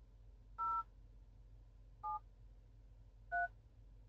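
Three short two-tone DTMF keypad beeps from the Proton X70 head unit's phone dial pad as the digits 0, 7 and 3 are pressed, about a second and a half apart.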